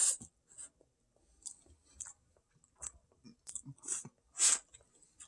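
A man eating cup ramen noodles, chewing and taking in mouthfuls off a fork: a string of short, irregular mouth noises, the loudest about four and a half seconds in.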